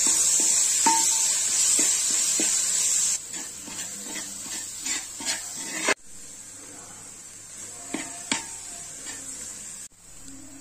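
Sliced onions and tomatoes frying in oil in a steel pan, sizzling, while a steel ladle stirs them with sharp taps and scrapes on the pan. The sizzle drops away suddenly about three seconds in, leaving quieter scattered clicks of the ladle.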